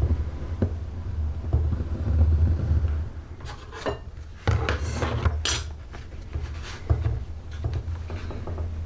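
Hand leatherworking at a workbench: small tools knock and clink on the surface, with a run of short scratchy scraping strokes about halfway through, over a steady low rumble.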